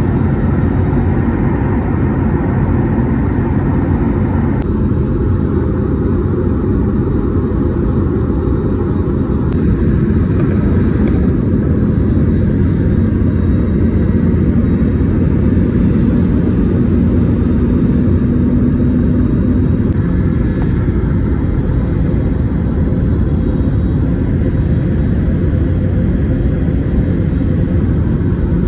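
Airliner cabin noise heard from a window seat over the wing: a steady, deep rumble of the jet engines and airflow. Its tone shifts slightly about 5 and 10 seconds in.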